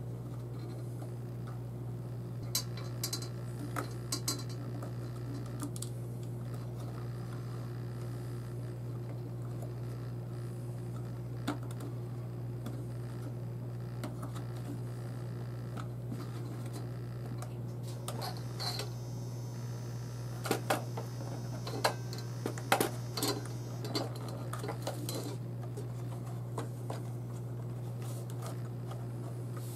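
Small plastic clicks and taps as a replacement motor is pressed into the green plastic motor arm of a JJRC H26 quadcopter and the arm halves are worked together, over a steady low hum. The clicks come in a few short clusters, a handful a few seconds in and a denser run about two-thirds of the way through.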